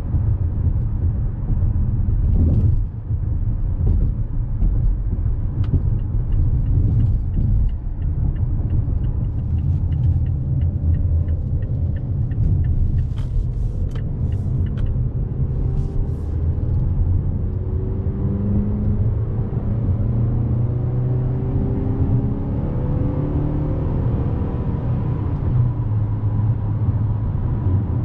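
2024 Mazda CX-5 2.5 S's 2.5-litre four-cylinder engine and road noise while driving, a steady low rumble. A run of light, evenly spaced ticks comes in the middle. From about halfway on, the engine note climbs several times in a row as the SUV accelerates through its gears.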